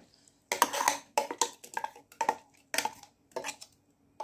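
Steel spoon clinking and scraping against a stainless-steel mixer-grinder jar as ground masala paste is knocked out into a pressure cooker: a string of irregular, sharp metallic taps with quiet gaps between them.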